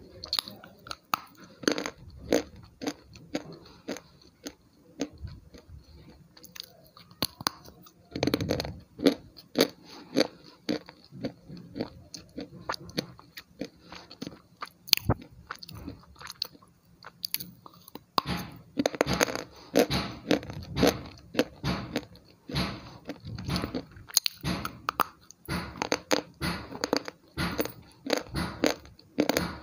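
A person biting off and chewing something hard and brittle, in sharp, irregular crunches. The crunches come in quicker runs about a quarter of the way in and again through the last third.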